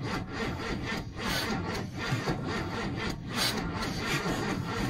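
6.2 diesel V8 being cranked over by its starter in the cold, turning slowly and labouring without firing, in a rasping rhythm of about two or three strokes a second.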